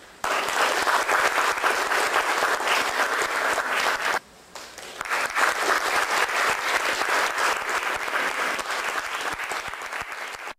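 Audience applauding, with a break of about half a second a little after four seconds in before the clapping builds again.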